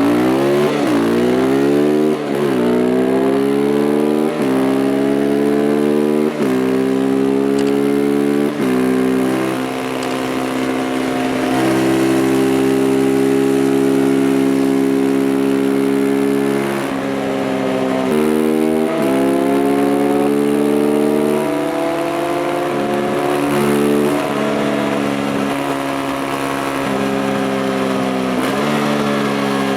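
Beta RR 125 motorcycle engine under hard acceleration, pitch climbing and then dropping sharply at four quick upshifts about two seconds apart. It then holds a steady cruise, with a dip in revs about two-thirds of the way through and a climb back up.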